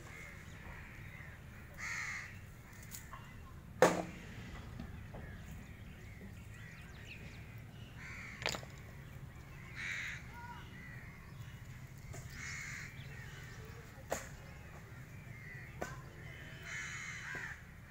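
Crows cawing, short calls every few seconds. A few sharp knocks cut in, the loudest about four seconds in.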